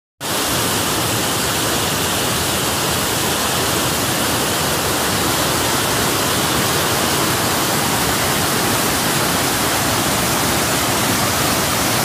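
Steady, even rush of water, unbroken throughout.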